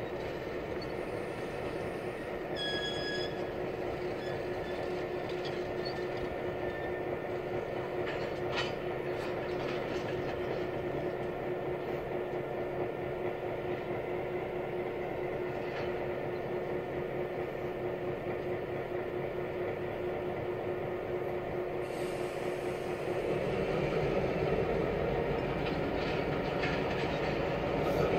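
Two EMD SD9 diesel locomotives, each with a V16 two-stroke 567 engine, running as they slowly pull a string of tank cars, with a steady drone and the rumble of wheels on rail. There is a brief high squeal about three seconds in. About 23 seconds in, the engines throttle up and get louder.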